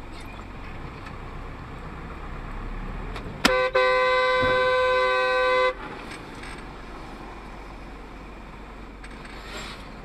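A sharp knock, then a vehicle horn sounding in a very short blast followed by one held for about two seconds, which cuts off suddenly. Steady road noise runs underneath.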